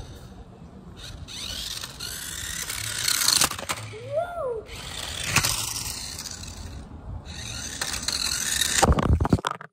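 Toy remote-control car's small electric motor and gears whirring as it drives, with tyres scraping over rough ground, louder and softer in turns. A brief rising-and-falling squeak about four seconds in; the sound cuts off suddenly near the end.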